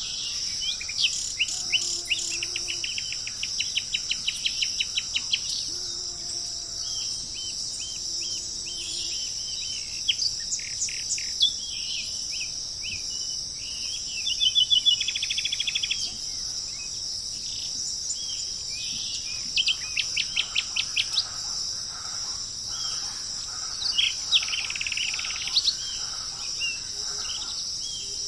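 Several birds chirping and calling over a steady, high-pitched insect drone. The birds give runs of quick repeated chirps and a fast trill about 15 seconds in, with a few soft, low notes in the first third.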